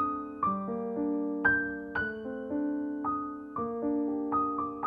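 Background piano music: single notes and chords struck at an even, unhurried pace, about two or three a second, each ringing and fading.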